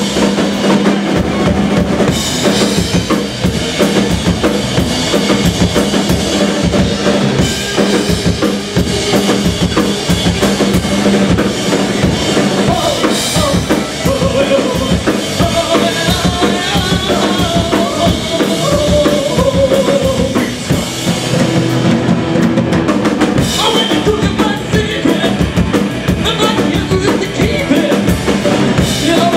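Live rock band playing: a drum kit, electric bass and electric guitar, loud and continuous with a steady beat.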